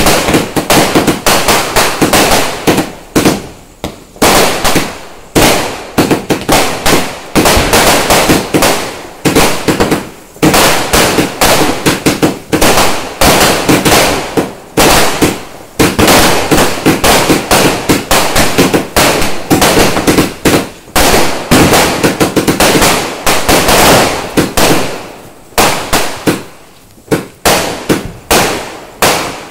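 Fireworks going off close by in a rapid, near-continuous barrage of loud bangs and crackles, several a second with brief pauses. The barrage dies away near the end.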